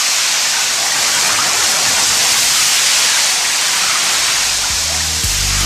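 Rain sound effect: a steady, loud hiss of pouring rain. Low bass music fades in about four and a half seconds in, with a beat starting just before the end.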